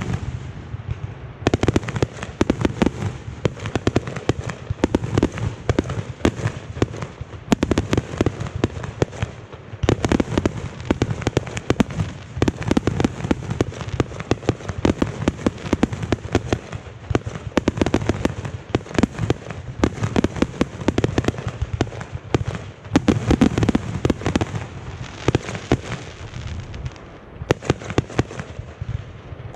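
Consumer fireworks barrage: a dense, unbroken run of rapid launches and bangs with crackle, many reports a second over a low rumble.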